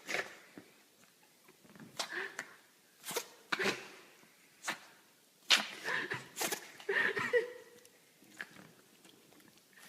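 An animal sneezing again and again: a string of short, sharp sneezes at uneven intervals, with quiet gaps between them.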